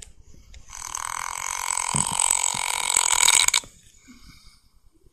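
A man snoring: one long, rough snore lasting about three seconds, building in loudness and then stopping abruptly.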